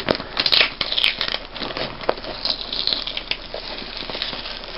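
Hands picking at and pulling packing tape and cardboard flaps on a shipping box, a busy crinkling and scraping with small clicks, loudest in the first second or so.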